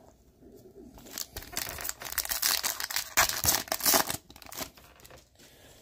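Foil wrapper of a 2022 Topps Series One baseball hobby pack being torn open by hand, crinkling and ripping for about three seconds, loudest in the middle.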